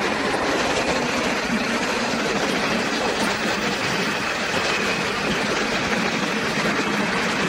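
Freight train of covered wagons rolling past on the rails, a steady dense rumble of wheels without distinct rail-joint clicks.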